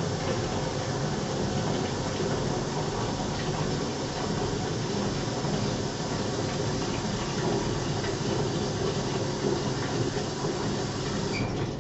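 Hot water running from a sink faucet into a plastic container in a stainless steel sink, a steady splashing rush that is shut off near the end.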